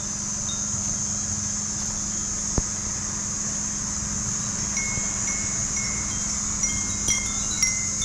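Short, clear chime-like notes ringing one after another from about halfway through, over a steady high hiss and low hum, with a single sharp click a little before three seconds in.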